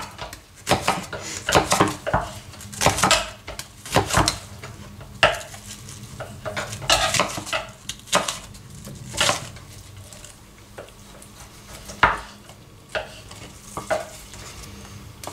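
Knives cutting on wooden boards: a chef's knife slicing through an onion, and a second knife cutting raw meat. The blade knocks on the wood irregularly, several times a second at first, then more sparsely.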